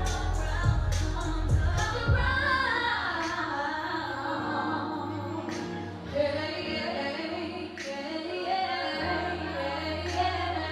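A woman singing a slow R&B melody over a backing track with deep bass. Sharp beats fall in the first couple of seconds, then the singing carries on over sustained bass and chords.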